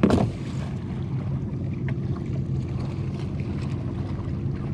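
A steady low drone throughout, with a brief loud knock right at the start as the fish and pliers are handled over the kayak, and a few faint ticks after.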